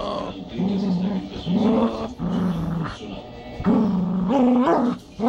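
Dog growling, a string of low, drawn-out growls with short breaks between them, loudest near the end, while she has her mouth on a toy chicken.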